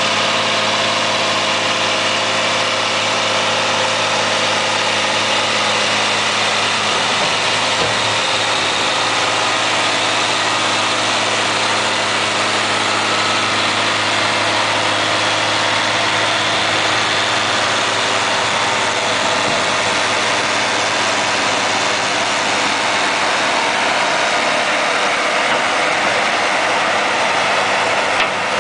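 Tractor diesel engine running steadily under load while driving a Simon triple Cultirateau bed former. The implement's rotary tines churn the soil and shape it into three raised beds, adding a steady mechanical rumble and rush over the engine.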